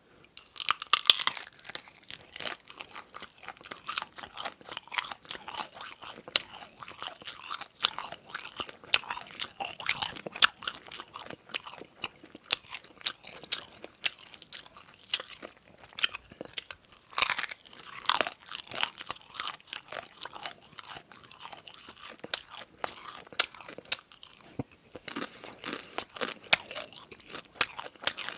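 Close-miked eating: crunchy bites and steady wet chewing, with a few louder crunching bites about a second in, around two-thirds of the way through and near the end.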